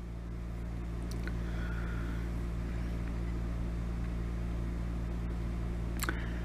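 Steady low mechanical hum with an even rumble, growing slightly louder over the first second, and a brief sharp click about six seconds in.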